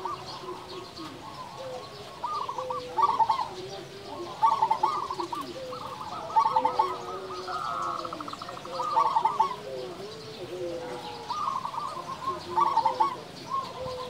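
Zebra dove (perkutut) cooing: repeated bursts of quick, rolling coo notes about every second or so, with a faster trill about eight seconds in and softer, lower notes between the bursts.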